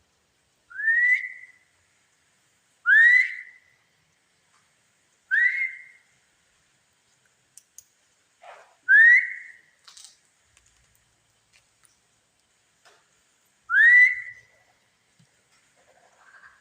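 A short rising whistled note, repeated five times at uneven gaps of two to five seconds, each sliding up and ending on a held pitch; the investigator treats such sounds as spirits answering.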